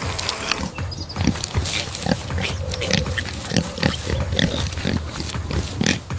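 An animal calling with many short, irregular sounds, several a second.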